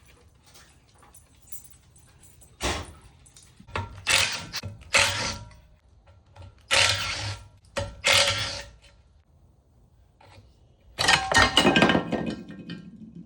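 Metal clattering and scraping from hand tools working the valve cover off a small pressure-washer engine, in about six short bursts with pauses between; the longest and loudest comes near the end.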